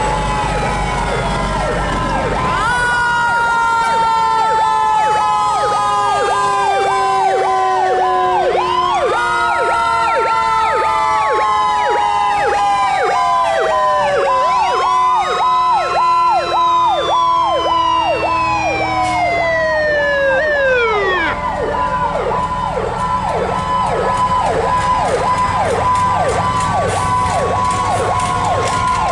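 Several fire truck sirens sounding at once: slow wails that rise and fall over a few seconds, with long falling glides as they wind down, over a fast repeating warbling siren that keeps going after the wails die away near the end.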